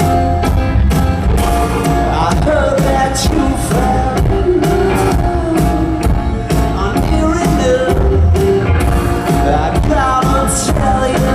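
Rock band playing live, with a steady drum beat, guitar and bass, and a lead voice singing over it from about two seconds in.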